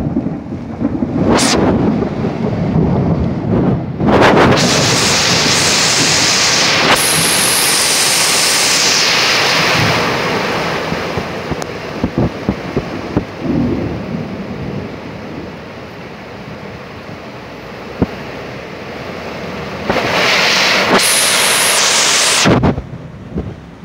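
Torrential rain on a street, a loud steady hiss that swells twice into long rushing surges, with low rumbles of thunder. A couple of sharp single taps come through in the middle.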